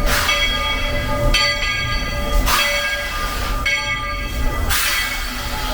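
Steam locomotive pulling into a station: a ringing bell-like tone alternates with bursts of steam hiss, the cycle repeating about every two seconds.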